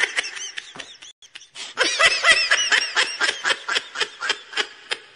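Laughter: a rapid string of giggling pulses, about five a second, with a short break about a second and a half in, then thinning out to single pulses and cutting off abruptly at the end.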